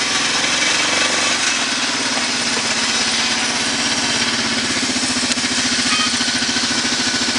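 A 2004 Arctic Cat 650 ATV's Kawasaki V-twin engine running steadily at idle, with an even pulsing beat.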